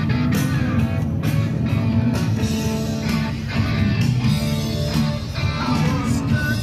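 Music with guitar over a steady beat.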